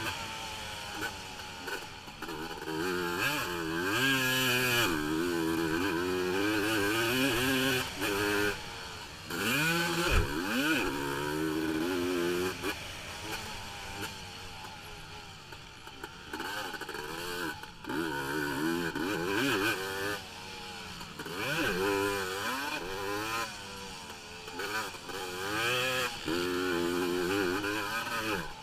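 A 450-class racing ATV engine heard from on board, revving up and dropping back again and again as the quad accelerates, shifts and slows for turns. A single heavy thump about ten seconds in.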